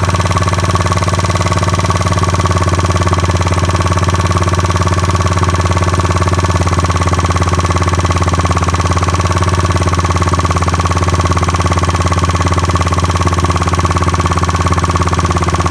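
Dong Fang 50cc scooter's GY6 engine idling steadily while its carburetor is being tuned.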